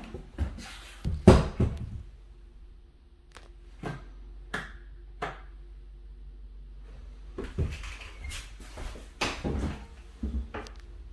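Knocks and clicks as a bathroom door is pushed open and someone walks in on a tile floor, with the loudest knock about a second in and a second run of steps later. A faint steady hum runs underneath.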